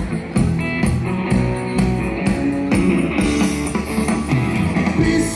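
Live band playing, with guitar over an evenly spaced drum beat and sustained chords.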